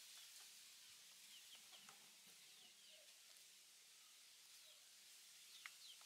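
Faint, scattered peeping of young chickens: short high notes that fall in pitch, a few at a time, over a steady soft hiss.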